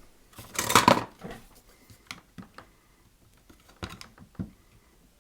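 Small plastic power supply case being handled while one of its rubber feet is prried off to reach a screw beneath. There is a loud scrape about half a second in, then scattered light clicks and taps.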